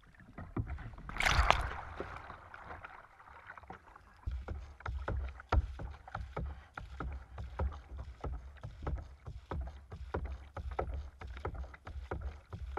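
Kayak coming up from an Eskimo roll, with a loud splash about a second in as the camera breaks the surface. Then paddle strokes splash and water slaps and knocks against the hull in a quick, uneven run of small splashes.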